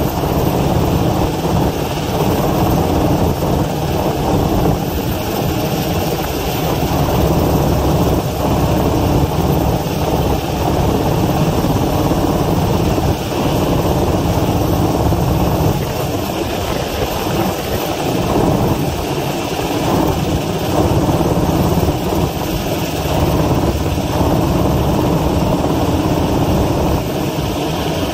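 Helicopter hovering overhead, its rotor beat and engine noise loud and steady.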